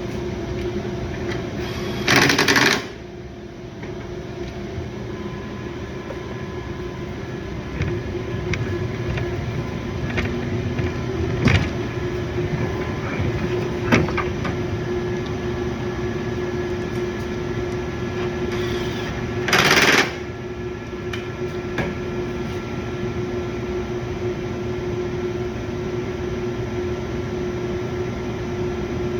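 A steady background hum with a few knocks and clicks of parts being handled. Twice, about two seconds in and again about two-thirds of the way through, a power tool runs for under a second, driving in a 10 mm bolt on the side of the bumper.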